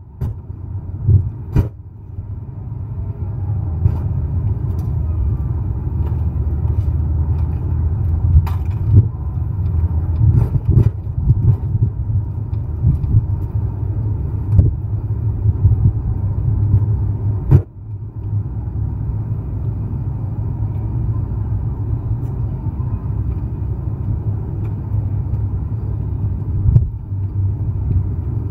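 Low rumbling handling noise from a camera swinging on a wrist strap as its wearer walks, with several sharp knocks as the camera bumps about.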